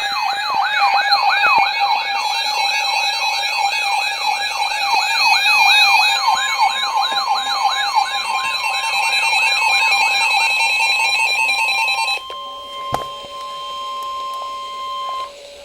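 Electronic alert siren of a weather alert radio, a rapid falling sweep repeating about two and a half times a second with steady tones above it, announcing a severe thunderstorm warning. Partway through, NOAA Weather Radio's steady 1050 Hz warning alarm tone joins it. The siren stops about three-quarters of the way through, and the steady tone carries on alone for a few seconds before cutting off.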